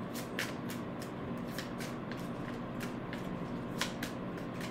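A deck of tarot cards being shuffled overhand in the hands: a quick string of short, crisp card flicks, about four or five a second, over a faint steady hum.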